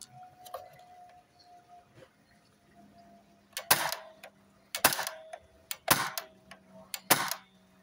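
CO2 BB airgun (a Crosman C11 CO2 pistol built into an L85-A2 rifle shell) firing 4.5 mm BBs: four sharp shots about a second apart, starting about halfway through.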